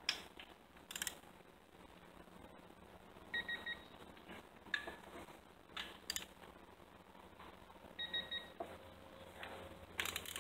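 A digital torque adapter on a ratchet beeps three quick times twice, about three seconds in and again about eight seconds in, as intake manifold bolts on a Ford 302 V8 are tightened to their set torque. Scattered clicks and knocks from the ratchet and socket fall in between.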